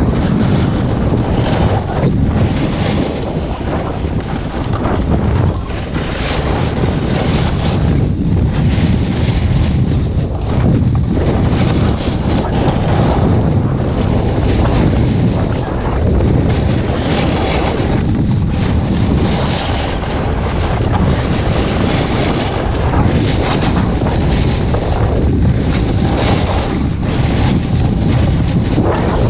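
Loud wind buffeting an action camera's microphone during a fast snowboard run. Under it, the board's edge scrapes over packed snow in swells every couple of seconds as it carves turn after turn.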